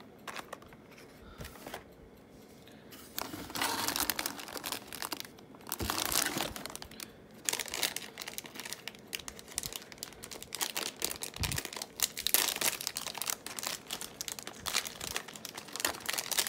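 Foil booster pack being torn open and crinkled by hand, along with a plastic-bagged miniature rustling. It is fairly quiet for the first few seconds, then irregular crinkling and tearing runs on.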